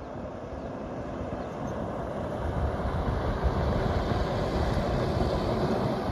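Force Gurkha SUV driving on a dusty dirt track, a steady rumble of engine and tyres that grows gradually louder as it comes closer.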